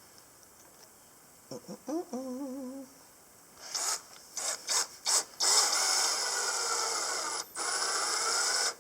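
A brief hum from a person, then a few knocks and a steady rasping scrape as the baler's PTO shaft turns inside its plastic shield: a screw fixing the shield is rubbing on the shaft.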